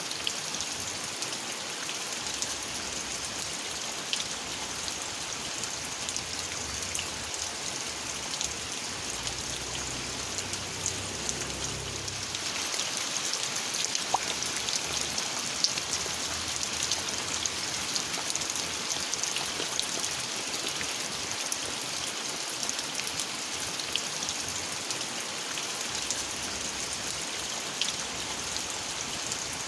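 Steady rain falling, with individual drops ticking through it; the rain grows a little heavier about halfway through.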